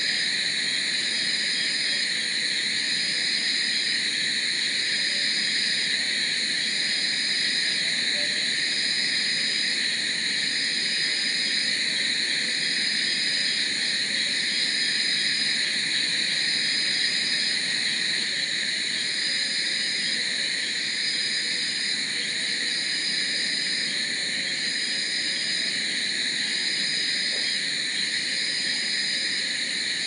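Night-time chorus of crickets and other insects: a dense, steady shrill drone at several pitches. Over it, one high note repeats every two to three seconds.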